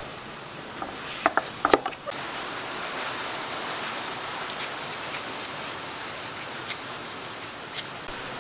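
Kitchen knife cutting pumpkin: a few sharp knocks of the blade on a wooden chopping board between about one and two seconds in, then a steady hiss while the flesh is sliced.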